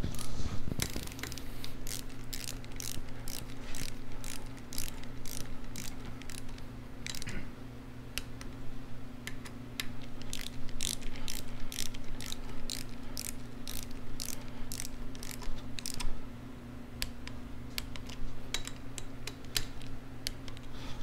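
Ratchet wrench clicking in quick runs of strokes with short pauses, as the rocker box bolts are run down and torqued.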